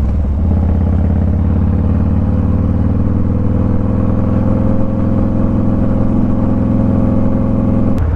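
Motorcycle engine running steadily under way, its pitch rising slowly.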